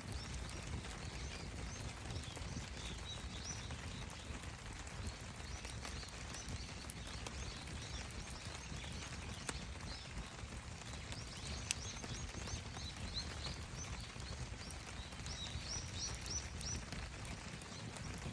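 Wood campfire burning, crackling with a steady run of small pops over a low rumble of flame. Short high chirps come in a few clusters, strongest near the end.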